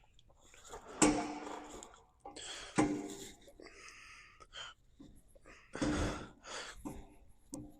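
A man's sharp, voiced breath sounds, three loud ones about a second, three seconds and six seconds in, each fading over about a second, with softer breaths between.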